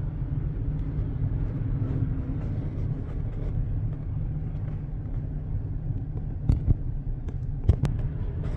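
Heavy truck engine running with a steady low rumble, with two short sharp knocks about six and a half and nearly eight seconds in.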